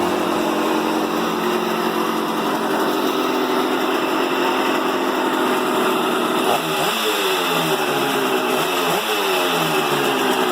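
An engine running, revved briefly twice in the second half, its pitch rising and then falling back each time.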